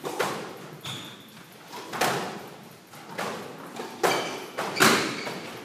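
Squash rally: the ball struck by rackets and smacking off the court walls, a string of sharp, echoing hits with the loudest near the end. Short high squeaks of sneakers on the hardwood floor come between the hits.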